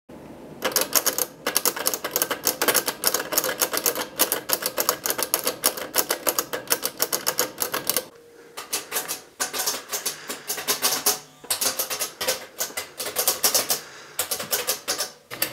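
Typewriter keys striking in fast, continuous runs of typing, with a brief pause a little past halfway and another near the end.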